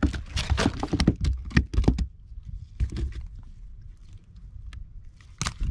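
Quick, irregular knocks and taps on a wooden boat deck for about two seconds, over a low rumble. Then only scattered taps follow, and one louder knock comes near the end.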